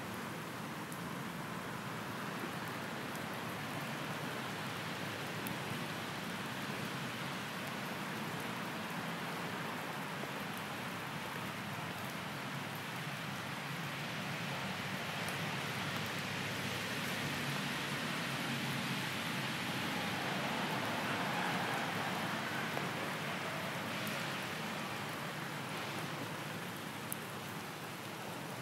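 Steady rain falling, a constant hiss with faint scattered drop ticks.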